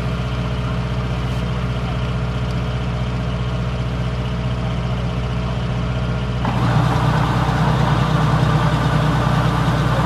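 Diesel engine of a Kubota combine harvester running steadily; about six and a half seconds in it becomes louder and rougher and stays that way.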